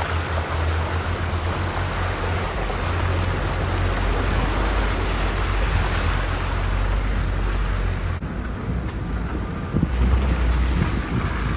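Off-road vehicle driving along a rough unpaved track: a steady, noisy rumble with heavy low buffeting like wind on the microphone.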